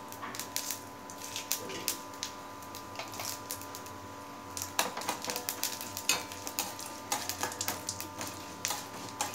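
Tempering spices (mustard seeds, cumin, chana and urad dal, dried red chilli) sizzling in hot oil in a steel bowl, with many sharp crackling pops. In the second half the pops come thicker, and a spoon stirs and scrapes against the steel.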